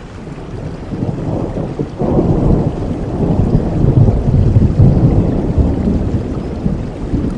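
Steady rain with a long roll of thunder that swells about two seconds in, is loudest around the middle and slowly eases off.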